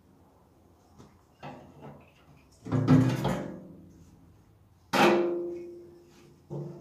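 Empty metal tractor fuel tank knocking against the frame as it is manoeuvred into place: two loud hollow clangs about two seconds apart, each ringing and dying away, with a few light clicks before them.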